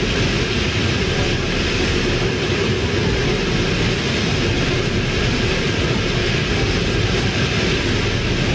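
Hurricane wind and heavy rain blowing through trees: a loud, steady rush with a deep rumble underneath.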